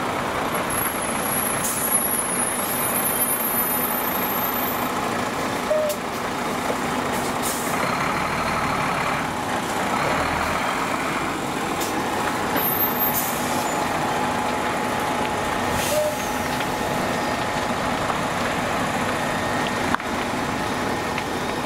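Diesel engine of a heavy six-wheel forest-fire tanker truck running steadily as it moves slowly past, with a few short air hisses now and then.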